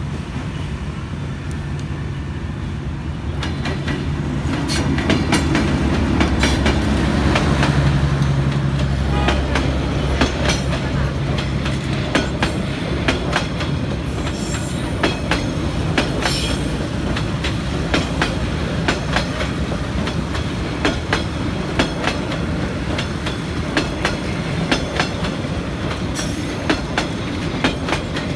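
D19E diesel-electric locomotive running as it approaches and passes, its engine hum loudest about five to ten seconds in. Then the passenger coaches roll by with a steady clickety-clack of wheels over rail joints, and a brief high wheel squeal around the middle.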